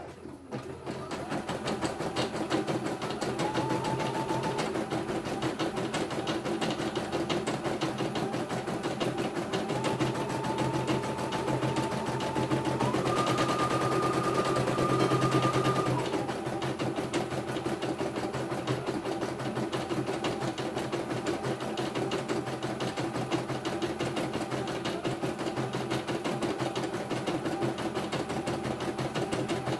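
CNY E900 computerized embroidery machine stitching a design, with a fast, steady needle clatter. A whining tone comes in short stretches and steps up in pitch, loudest about halfway through.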